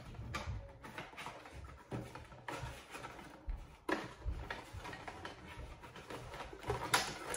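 Cardboard box of a toilet-wand kit being torn open and handled: scattered rustles and scrapes of paperboard at irregular moments.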